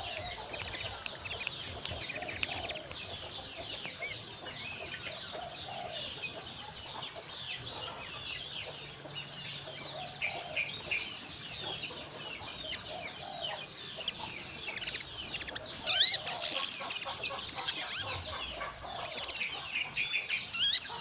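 Young caged olive-backed sunbird twittering in quick high chirps and trills as it practises its song, with wing flutters as it hops about the cage. The chirping grows busier in the second half, with one loud call about 16 seconds in.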